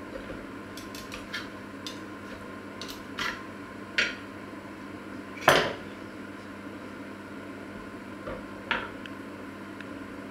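Metal tongs and a knife clinking and tapping on a wooden cutting board while cooked meat is handled: scattered light clicks, with one louder clatter about halfway through.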